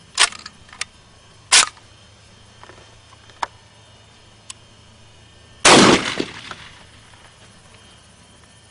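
Saiga 12 semi-automatic shotgun being test-fired: three sharp reports, the last and loudest one with a long echoing tail, and lighter metallic clicks between them. The gas plug is still under-gassing the shells, so the gun stovepipes instead of cycling cleanly.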